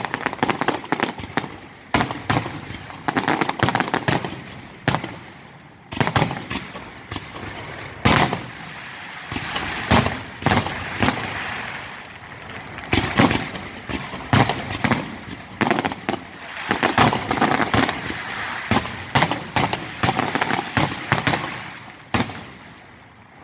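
Fireworks display: a dense, rapid string of sharp bangs and crackling reports from many shells bursting close together, dying away just before the end.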